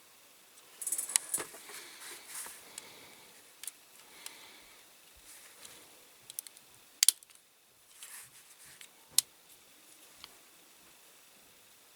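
Small diecast toy car parts being handled and pressed together: rustling and scraping with a few sharp clicks, the loudest about seven seconds in and again about nine seconds in. A part is being forced onto rivet posts that may be a little too wide.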